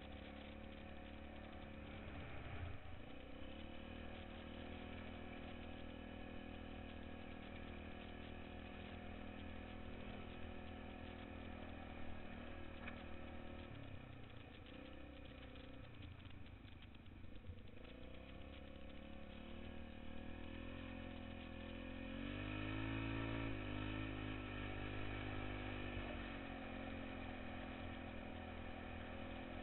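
ATV engine running under way, mostly at a steady pitch. The pitch dips briefly about 17 seconds in, then climbs and wavers and grows louder about 22 seconds in as it speeds up, before settling again.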